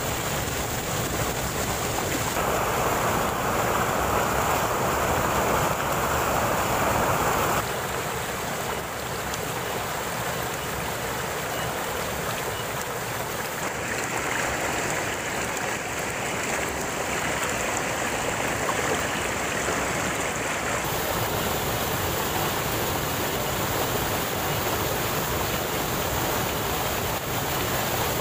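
Water rushing and splashing down a small rocky waterfall and stream: a steady, noisy rush whose tone changes abruptly several times.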